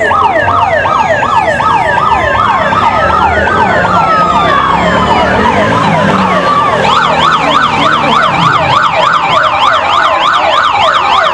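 Electronic sirens sounding, several at once in a fast up-and-down yelp, with a slower rising and falling wail about four seconds in. From about seven seconds in, one steady rapid warble of about three sweeps a second takes over.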